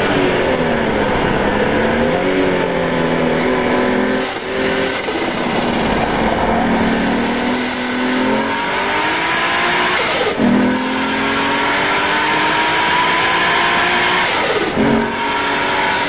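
Turbocharged RB20DET straight-six of a Nissan R32 Skyline under hard acceleration on track, its pitch climbing steadily and then breaking and dropping back about 4, 10 and 15 seconds in, each time with a short rushing sound before it climbs again.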